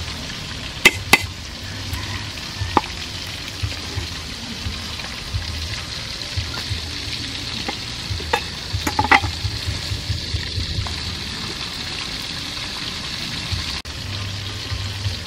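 A steel cleaver knocking on a thick wooden chopping block: a few sharp strikes, two close together about a second in and a short cluster around nine seconds in, over a steady high hiss.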